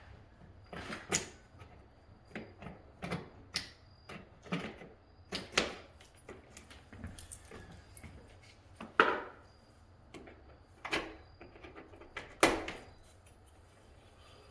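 A hand tool working the bottoms of old spiral window balances free from the sash window jamb: an irregular string of sharp clicks and knocks with some scraping, the loudest about nine and twelve seconds in.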